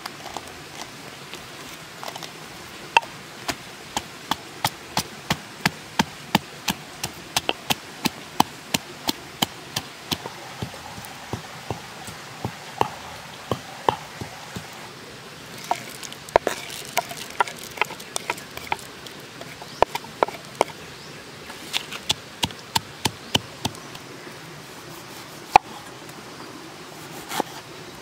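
Repeated sharp knocks of a kitchen tool striking wood in hand food preparation, about two a second at first and then in irregular clusters, over a steady background hiss.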